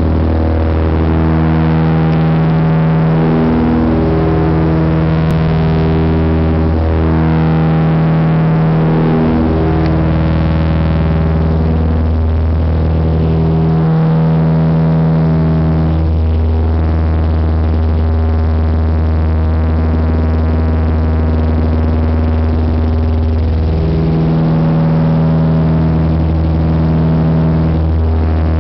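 Light propeller aircraft's engines and propellers droning steadily, heard from inside the cabin in flight, the hum swelling and fading slowly every few seconds.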